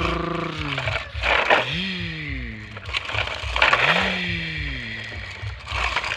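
A person's voice making engine noises for toy trucks: a held, buzzing hum at the start, then several falling vroom-like glides with breathy hissing bursts between them.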